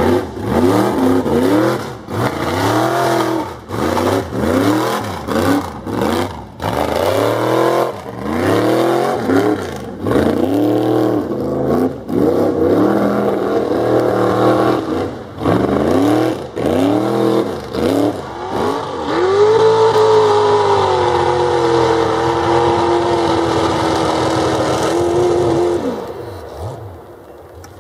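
Mud bog truck engine revving hard in repeated rising-and-falling bursts as the throttle is worked through deep mud, then held high and steady for several seconds before dropping off shortly before the end.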